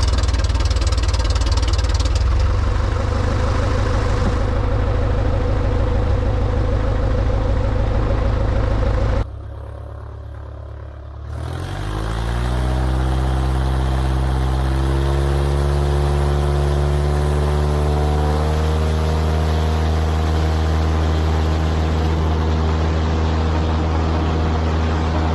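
CubCrafters Carbon Cub EX bush plane's engine and propeller running loud just after start-up. About nine seconds in, a cut: the engine is quieter for a couple of seconds, then its pitch climbs steadily over several seconds as power comes up and holds at a steady high-power drone.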